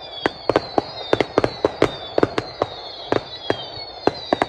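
Fireworks going off: rapid, irregular bangs and cracks, several a second, over high whistles that glide slowly downward in pitch.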